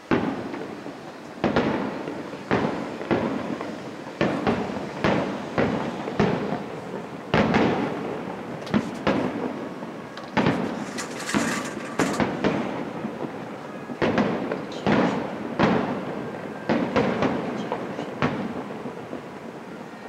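Aerial firework shells bursting one after another, sharp booming bangs with echoing tails at roughly one a second. A hissing crackle comes in about ten seconds in.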